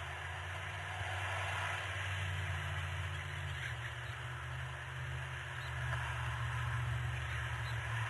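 Steady low hum and hiss from an outdoor nest camera's microphone, with a couple of faint short high sounds about halfway through and near the end.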